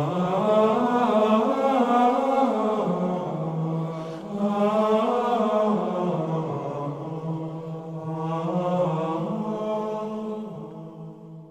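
Slow vocal chant, sung in three long phrases, fading out near the end.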